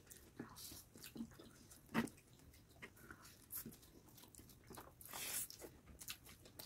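Quiet eating sounds from a mouthful of spicy chowmein noodles: soft chewing and wet lip smacks, with a sharper smack about two seconds in and a short slurp about five seconds in.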